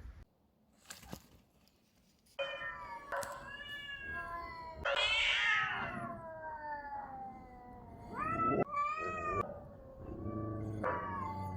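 Domestic cats yowling in a fight standoff: long, drawn-out howls that slowly fall in pitch, then shorter wavering yowls, starting after a couple of seconds of quiet.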